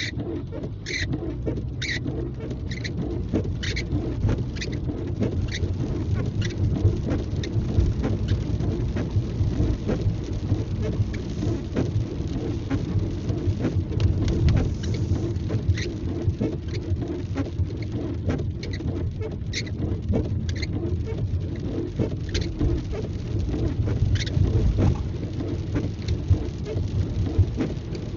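Inside a car driving in the rain: a steady rumble of tyres on the wet road and the engine, with rain pattering on the car and scattered short ticks and taps while the windshield wipers sweep.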